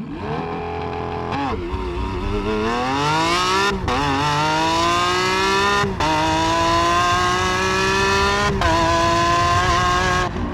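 Car engine accelerating hard through the gears: its pitch climbs and then drops sharply at each of several upshifts.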